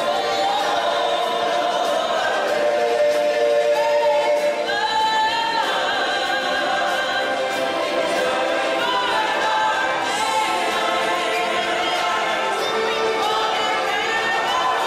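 Live stage-show music: a choir of voices singing long, held notes that glide between pitches over backing music.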